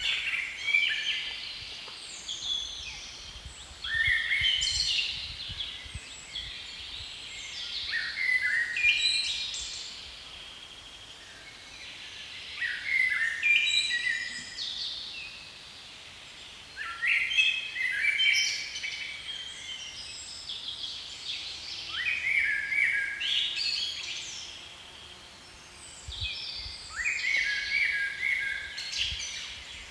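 A songbird singing: a short, busy phrase of quick high notes repeated about every four to five seconds, seven times, over faint outdoor background noise.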